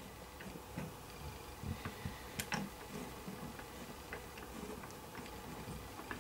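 Rotating display turntable turning a LEGO minifigure, with faint, unevenly spaced ticks and clicks and a few soft low thumps around the middle.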